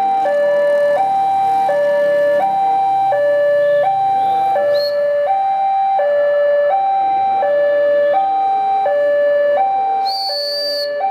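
Railway level-crossing warning alarm sounding: two electronic tones alternate evenly, a higher and a lower, each held about 0.7 s and repeating without break. A brief high-pitched sound cuts in near the end.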